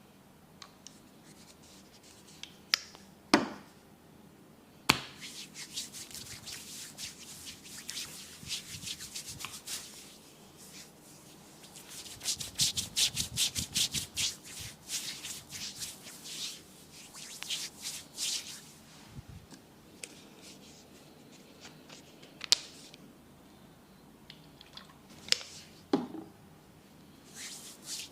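Hands rubbing and working rapidly over hair and skin in a head and back massage, in quick dense strokes that come in runs, with several single sharp clicks or snaps in between.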